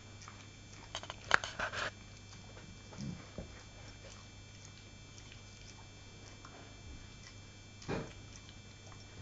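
A Labrador retriever having its teeth brushed, mouthing and chewing at the toothbrush: a quick run of clicks and scrapes between one and two seconds in, and another short mouth sound near the end.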